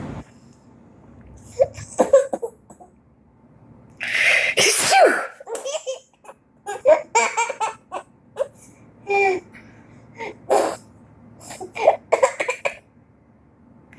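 A sneeze about four seconds in, followed by a baby's short bursts of laughter over the next several seconds: the baby is laughing at the sneeze.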